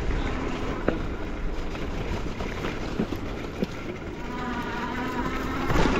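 Bicycle riding along a dirt forest trail: wind rushing over the microphone and tyres rolling, with a few sharp knocks from the bike going over bumps. About four seconds in a steady buzzing hum joins in.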